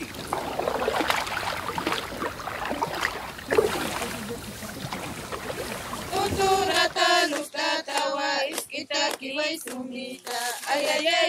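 A few seconds of even rushing, splashing noise, then high voices singing a song together from about six and a half seconds in.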